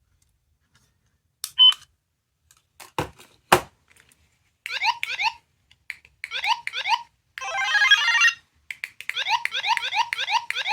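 Small electronic sound-effect capsule toy: a few sharp clicks from handling or button presses, then rapid rising electronic chirps played in short bursts, ringtone- or alarm-like, running without a break near the end.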